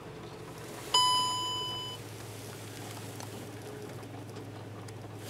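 A single electronic warning chime from the Volkswagen Golf Mk5's dashboard, about a second in, ringing for about a second and fading away. A steady low hum from the idling engine runs beneath it.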